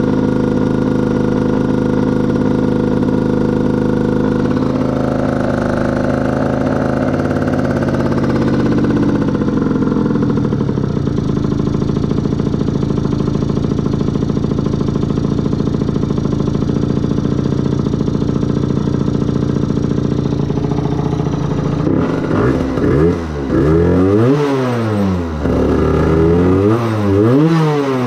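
A 50cc two-stroke motorbike engine running at a deliberately high idle; about ten seconds in its speed drops to a lower, steady idle as the carburettor's idle screw is turned. Near the end it is revved up and let fall back twice.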